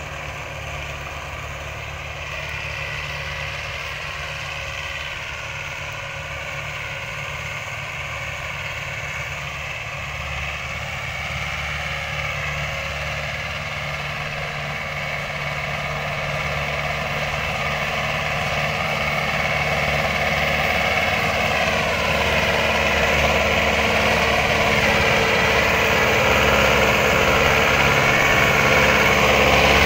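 Tractor diesel engine running steadily under load while pulling a disc harrow through ploughed soil. It grows steadily louder as the tractor comes close.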